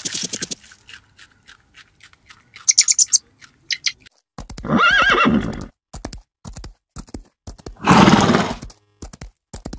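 Horses neighing twice, about five seconds in and again near eight seconds, with sharp irregular clicks of hoofbeats between.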